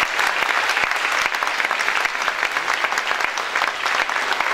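Audience applause: many hands clapping in a dense, steady patter after a song ends.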